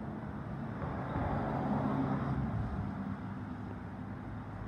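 Steady low rumble of distant vehicles with a faint hum, swelling slightly about a second in and easing off again.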